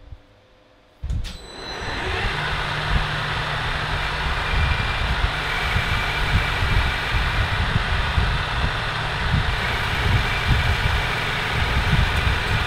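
Metal lathe running, its four-jaw chuck spinning as the cutting tool turns a steel shaft: a steady mechanical whir with a low thrum. It starts abruptly about a second in.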